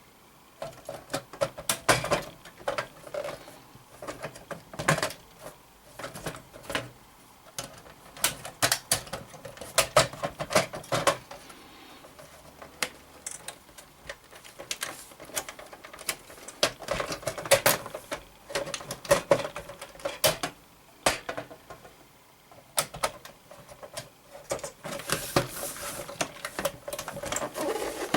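Hands working on an opened Blu-ray player: irregular clicks, taps and rattles of small plastic and metal parts and tools being handled.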